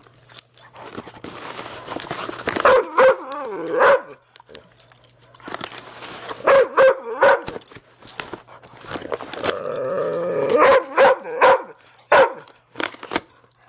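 Pit bull giving short, pitched yips and whines in three clusters while ripping at a cardboard box, with rustling and tearing of cardboard in between.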